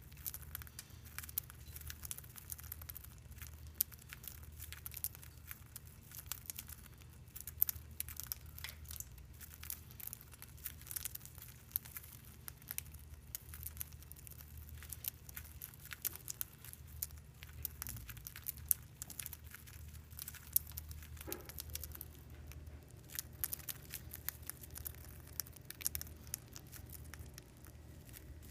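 Budgies pecking and husking millet seeds, a dense run of small irregular cracks and crackles, over a low steady hum.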